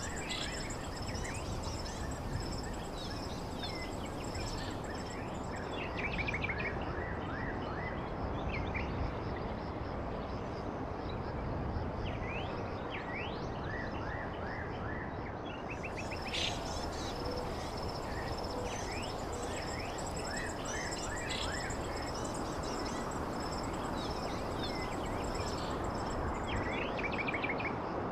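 Outdoor countryside ambience: small birds chirping and calling over a steady high insect trill and a constant low background rush.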